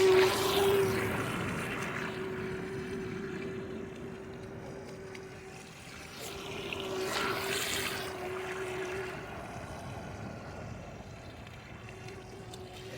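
Electric motor of a radio-controlled boat running at a steady high pitch, with the hiss of water spray. It swells as the boat passes close at the start and again about seven seconds in, and the tone drops out briefly twice.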